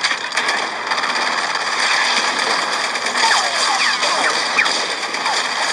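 Battle soundtrack of a war film played back through a room's speakers: a continuous din of gunfire and combat noise, with a few short gliding high tones.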